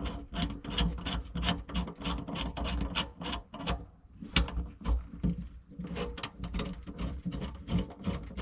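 Screwdriver backing out the screws of a garbage disposal's metal mounting ring: a steady run of short clicks and scrapes, several a second.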